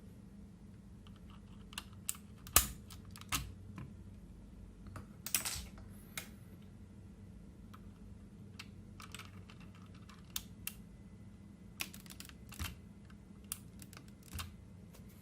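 A4Tech Bloody B760 mechanical keyboard being typed on: irregular, scattered key clicks with pauses between them, a few strokes louder and heavier than the rest.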